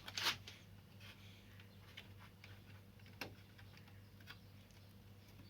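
Faint small clicks and scrapes of a screwdriver tightening wire terminal screws, with a louder scrape about a quarter second in and another a little after three seconds. A low steady hum runs underneath.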